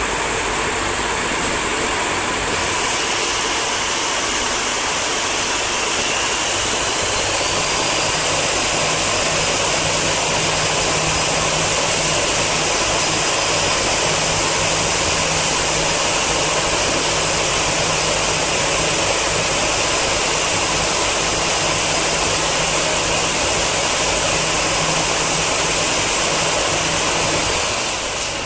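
Row of cold spark machines firing their spark fountains with a loud, steady hissing rush. A low steady hum joins in a few seconds in.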